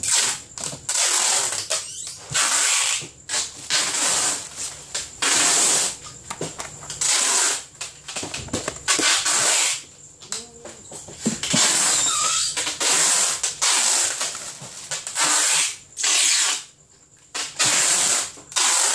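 Plastic packing material being handled for packing durian pancakes: a string of loud rustling and tearing bursts, each about half a second to a second long, with short pauses between them.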